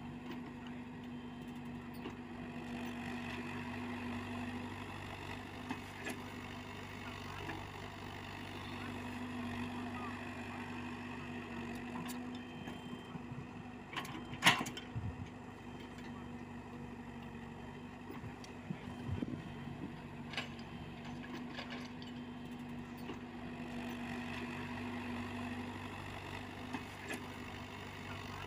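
Komatsu PC78UU mini excavator's diesel engine running steadily as the machine digs, its note swelling and easing several times under load. A single sharp knock about halfway through is the loudest sound, with a few smaller clicks after it.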